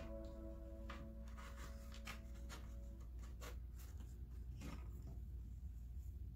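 Faint rubbing and light ticks of hands pressing painted wooden oars down onto a plaque. Held background music notes fade out in the first few seconds.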